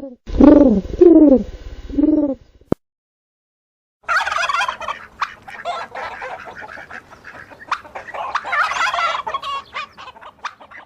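Three short rising-and-falling bird calls end the first part. After a brief pause, a domestic turkey gobbles in a long, rapid, chattering run.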